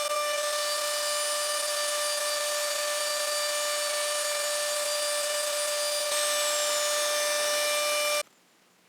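Festool Domino portable mortiser (domino joiner) running with a steady high whine, its sound shifting slightly about six seconds in, then cutting off abruptly near the end.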